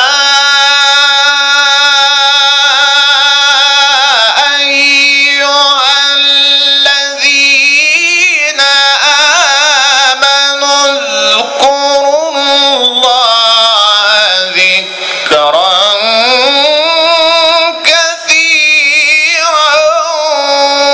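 A man reciting the Quran in the melodic, drawn-out tilawah style, heard loud through the microphone. He holds long notes with wavering ornaments, pausing only briefly for breath. His pitch sinks lower a little past halfway and climbs back up toward the end.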